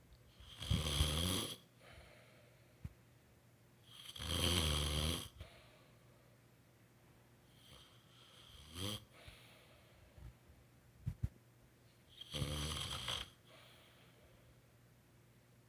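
A woman snoring in her sleep: four snores about four seconds apart, each lasting around a second, the third one short and weaker. A couple of faint clicks come just before the last snore.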